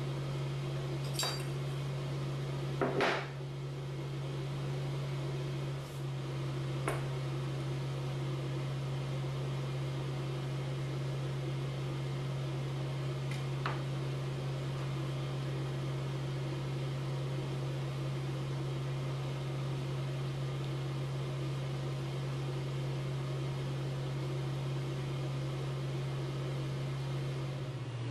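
Steady low hum, with a few light clicks and one louder knock about three seconds in, from a knife and a small glass pie dish being handled on the worktop.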